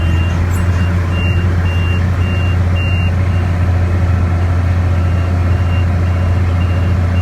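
Case 5140 tractor engine running under load with a steady drone, heard from the cab, while the baler's in-cab monitor beeps a high alarm tone about twice a second.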